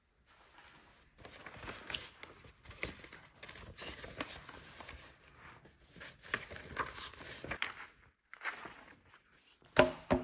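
Sheets of paper rustling and shuffling as a stack is leafed through, followed by two sharp taps near the end as the stack is knocked upright on a tabletop to square it.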